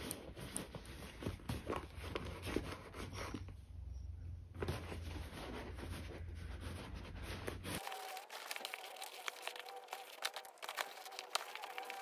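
Microfiber cloth rubbing and rustling against the inside of a box-leather handbag, in irregular soft scuffs and small clicks. A low background rumble stops abruptly about eight seconds in.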